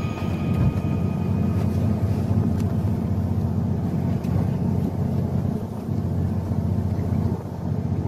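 Low, steady rumble aboard a fishing boat at sea, its engine running, with wind buffeting the microphone.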